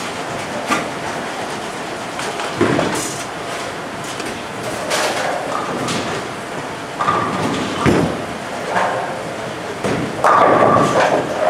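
Bowling alley din: bowling balls rumbling along the lanes and ball returns, with repeated clattering of pins and balls knocking together, the loudest clatter near the end.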